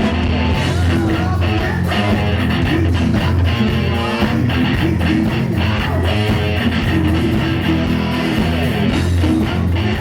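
Heavy metal band playing live, electric guitar to the fore.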